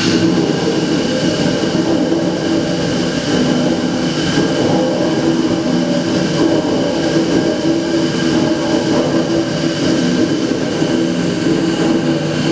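The River Don Engine, a 1905 Davy Brothers three-cylinder single-expansion reversing steam engine built for rolling armour plate, running under steam. Its sound is loud and steady, with a few steady low tones.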